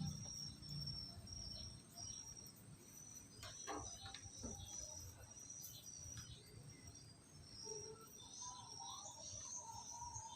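Faint, high-pitched chirping of insects, crickets by their sound, against a low background hum, with a few soft clicks midway.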